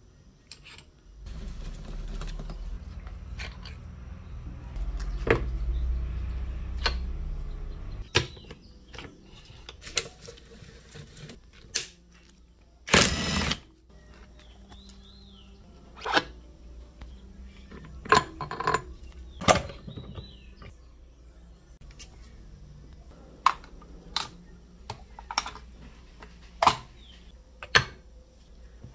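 Metal engine parts being handled during a CG motorcycle engine teardown: scattered clinks and knocks of steel gears, shafts and tools against the aluminium crankcase. A low rumble runs through the first several seconds, and there is one brief, louder burst of noise about halfway through.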